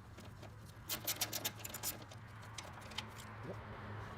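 A 10 mm socket on a ratchet clicking in a quick, uneven run of sharp ticks about a second in, then once more near the three-second mark, as the bolt in the middle of the bumper is turned out.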